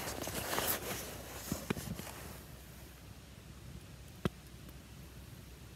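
Soft rustling as a paperback picture book and a jacket sleeve are handled and the book is held up open, then a low quiet background with a single sharp click about four seconds in.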